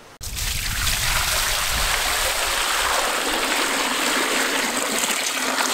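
Water pouring in two heavy streams into a large metal cooking pot, splashing steadily. It starts abruptly right at the beginning and is deeper for the first couple of seconds.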